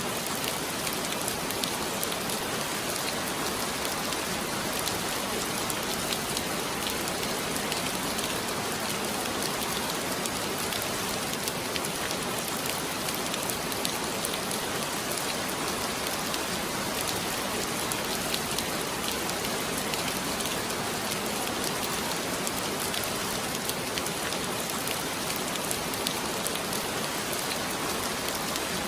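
Heavy rain falling steadily, a dense hiss with countless fine drop patters and no letup.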